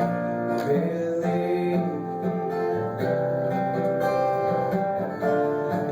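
Strummed acoustic guitar accompanying a man singing the hymn line that ends on "believed", with the guitar playing on between the verse and the chorus.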